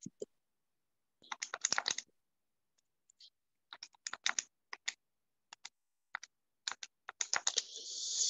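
Computer keyboard being typed on: a quick run of keystrokes about a second in, then scattered single key clicks. A hiss swells near the end.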